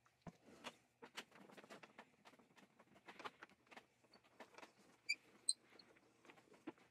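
Rusty iron crank handle of an antique James Swan beam drill being twisted and worked on its shaft: faint scattered scrapes and clicks of metal on metal, with two short squeaks about five seconds in.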